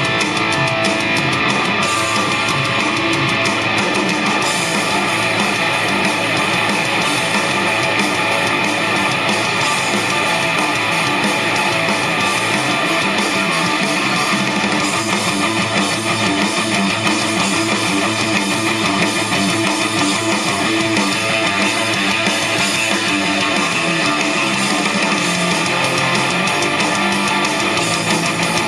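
Guitar music playing back from a cassette tape on an MCS 683-3595 dual stereo cassette deck, steady and continuous.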